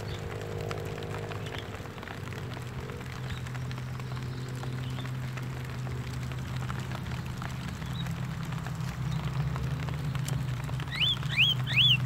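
A steady low hum runs throughout. Near the end come several short rising-and-falling calls in quick succession from Javan mynas (jalak kebo), the loudest sounds.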